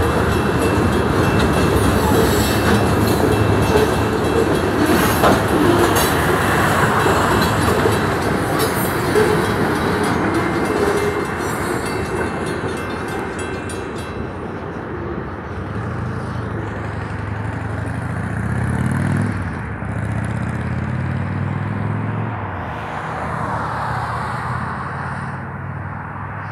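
A freight train's loaded centerbeam lumber cars rolling past over a grade crossing, a dense rolling rumble with a few sharp wheel clicks that fades about halfway as the end of the train moves off. Then road traffic: car engines rise and fall as vehicles drive past.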